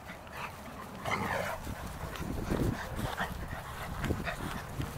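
Labrador puppies giving a few short yips and whimpers, the clearest about a second in.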